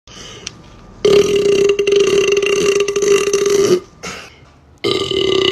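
A man burping long and loud at one steady pitch for nearly three seconds, then a second long burp starting about a second after it ends.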